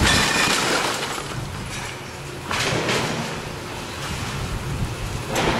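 Brick walls crashing and rubble falling during demolition, in three bursts: near the start (the loudest), about two and a half seconds in, and near the end. A hose spraying water hisses steadily throughout.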